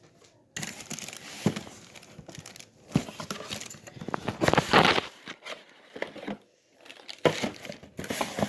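Toy packaging crinkling and rustling as it is handled and pulled apart, in irregular bursts with a louder stretch just before the middle and a short lull after it.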